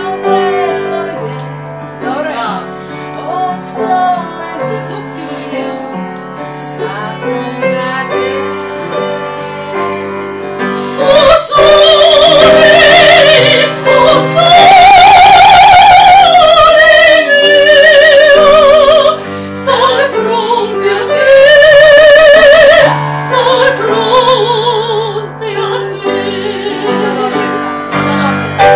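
A woman singing in an operatic style with wide vibrato, accompanied by piano. In the middle her voice rises to loud, long-held high notes, then drops back to a softer line over the piano.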